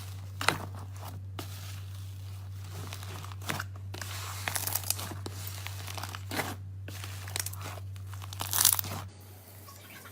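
Slime being squished and stretched by hand, giving irregular crackling, crunching pops, loudest about half a second in and again near the end. A steady low hum runs underneath and stops shortly before the end.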